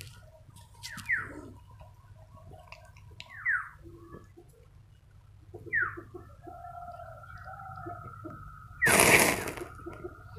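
A loud, brief spattering burst about nine seconds in, as the wax and water in a metal bottle cap heated over a candle flame spit and flare up. Short falling bird chirps sound a few times before it.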